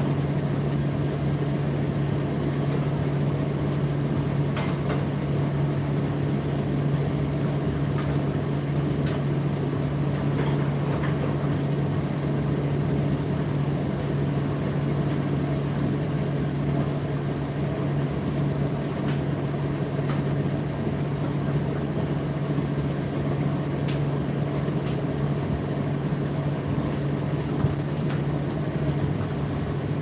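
Indesit IDC8T3 8 kg condenser tumble dryer running mid-cycle: a steady low motor hum with the whir of the turning drum and fan, and a few faint ticks.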